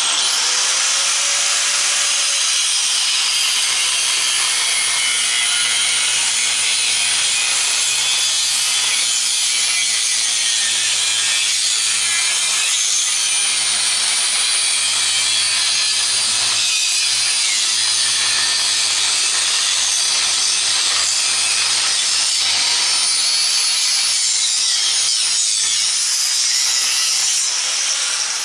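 Angle grinder cutting lengthwise through an electric pump motor's housing: a steady high whine over a grinding hiss. The cut is meant to relieve the housing's pressure on the stator so it can be pulled out. Near the end the grinder is switched off and its whine falls as the disc spins down.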